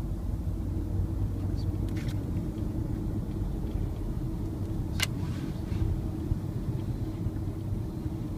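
Car interior noise heard from the back seat: a steady low rumble of engine and road with a steady hum, and a sharp click about five seconds in.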